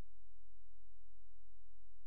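A steady, very low hum with nothing else over it.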